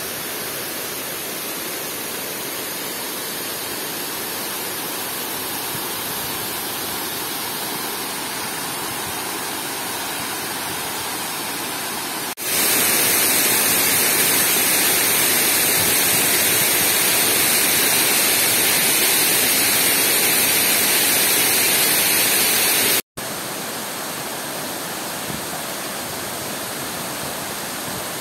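Steady rushing of water spilling down a dam's masonry spillway. About twelve seconds in, it cuts to a louder, closer sound of water cascading into the pool at the foot of the spillway. Near the end it cuts back to a softer rush of whitewater over rocks in the stream below.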